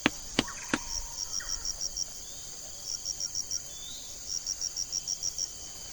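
Insects chirping: a steady high drone, with runs of rapid high chirps, about seven a second, that come in bursts of about a second and repeat several times. Three sharp clicks sound in the first second.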